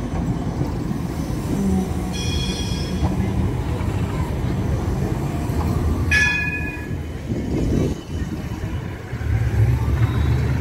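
City trams running past close by on street rails: a steady low rumble with two brief high-pitched squeals, about two and six seconds in, and a heavier rumble near the end as a second tram passes.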